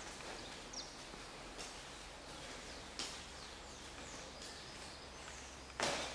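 Quiet ambience with a low steady hum and faint short bird chirps, a few small clicks, and one sharp knock near the end, the loudest sound.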